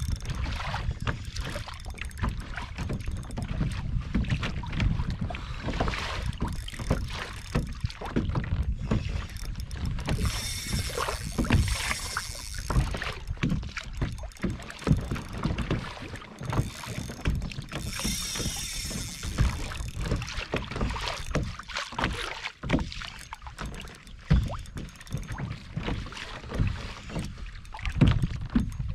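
Wind buffeting the microphone with a steady low rumble, while choppy water slaps and knocks against a plastic fishing kayak's hull in frequent short splashes.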